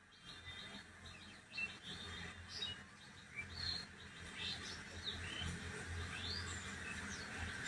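Small birds chirping: many short, scattered chirps and quick upward-sweeping calls. Under them is a low steady hum that grows louder toward the end.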